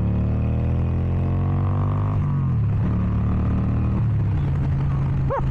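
Harley-Davidson Sportster Iron 883's air-cooled V-twin engine running through its exhaust under way, its pitch rising as it accelerates, dropping at gear changes about two and four seconds in, then holding a steady cruise.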